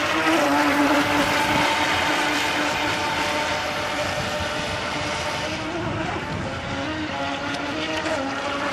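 Radio-controlled model speedboat running at speed across the water: its motor gives a steady buzzing drone that wavers slightly in pitch, over a hiss. It is loudest in the first few seconds and a little quieter later.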